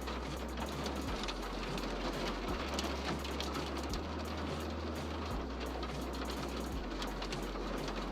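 Summer rain falling: a steady hiss with many small, rapid drop impacts pattering.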